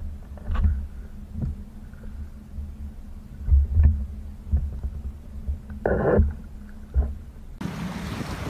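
Irregular dull low knocks and thumps on a clear plastic canoe hull with small water sounds, and a short rushing sound about six seconds in. Near the end it changes abruptly to steady wind and churning water from a boat's wake.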